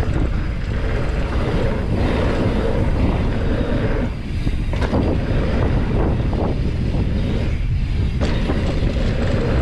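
Riding a Trek Roscoe 9 mountain bike fast on a dirt trail: wind rushing over the microphone, tyres rolling on dirt and the bike rattling over bumps, with a couple of sharp knocks about halfway and near the end.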